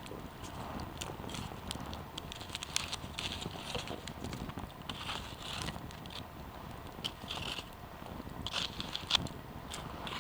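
Wood campfire burning with irregular crackles and sharp pops over a soft steady hiss. One louder pop comes about nine seconds in.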